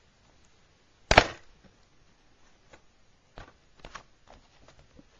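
Plastic DVD case snapping open with one sharp click a little over a second in, followed by a few light clicks and taps as the case is handled.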